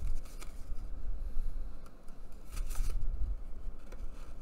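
Folded paper pages and a cardboard cover handled and slid together: a few short rustles and scrapes of paper on card, the strongest two to three seconds in, over a low steady rumble.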